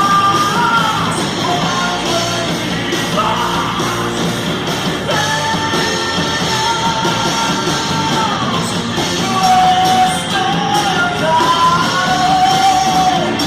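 Heavy metal band playing live, with a singer holding long, high notes over the guitars and drums.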